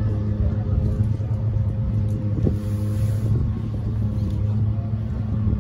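An engine running steadily, a low hum that holds one even pitch.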